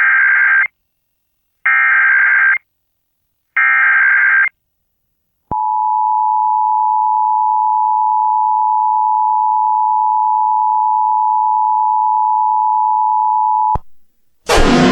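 Emergency Alert System SAME header: three short bursts of screeching digital data tones, each a little under a second and about a second apart. Then the EAS two-tone attention signal (853 and 960 Hz together) holds steady for about eight seconds and cuts off abruptly. A siren starts just before the end.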